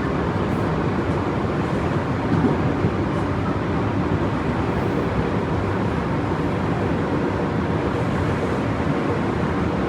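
Steady running noise inside a Tobu 30000 series electric train car at speed: an even rumble of wheels on rail.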